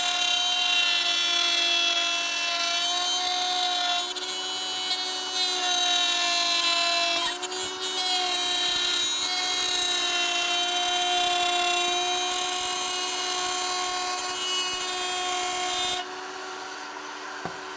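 Router in a benchtop router table running at a steady high whine while a board is pushed through the bit, the pitch sagging briefly now and then as the cut loads the motor. Near the end the cutting noise stops and the motor runs on alone, quieter.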